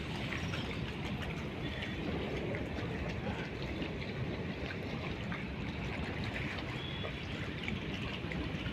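Water running steadily along a concrete-lined canal: an even rushing and gurgling of flowing water.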